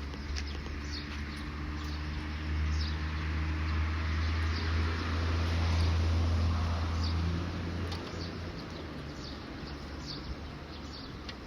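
A motor vehicle passing: a low engine hum and tyre noise build to a peak about six seconds in, then fall away after about eight seconds. Short, high, falling bird chirps repeat throughout.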